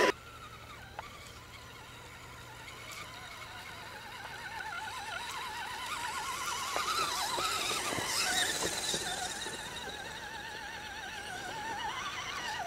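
Small electric motors and gearboxes of radio-controlled scale crawler trucks whining as they crawl through a muddy rut, the pitch wavering with the throttle and swelling in the middle, with a few faint clicks.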